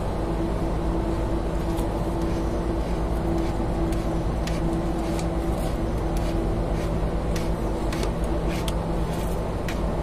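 Steady hum of running machinery, with two low steady tones and a few faint scattered ticks.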